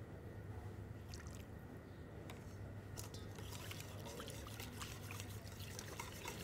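Wire whisk stirring a thin tomato sauce in a stainless steel bowl, the wires clicking and scraping against the metal, sparse at first and busier from about three seconds in. A low steady hum runs underneath.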